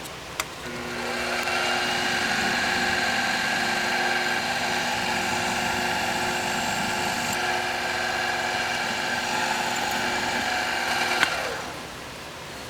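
A drilling machine's spindle runs steadily while a number 9 drill bit cuts a tap-drill hole in oiled metal. About 11 seconds in there is a click as it is switched off, and the motor winds down with a falling tone.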